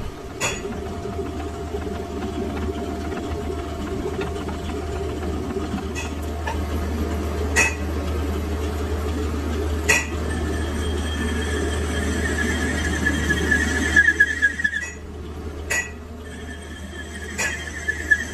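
Metal lathe running, its chuck spinning a heavy metal workpiece with a steady low hum and rumble. A high whine from the turning comes and goes, and there are several sharp metallic clicks. The rumble drops off about two-thirds of the way through.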